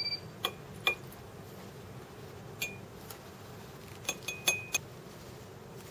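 Glass pipette and small glass beakers clinking lightly against each other: about eight separate clinks, each with a brief high ring. Several come in a quick cluster a little past the middle.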